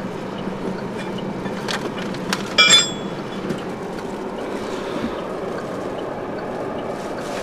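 Steel spanners and wrenches clinking together in a fabric tool bag as it is handled: a few light knocks, then one brighter ringing clink about two and a half seconds in, over a steady low hum.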